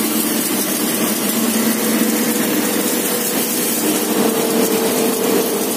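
Mini dal mill running steadily with pulses passing through it: an even machine hum over a broad rushing noise, one higher tone in the hum strengthening about four seconds in.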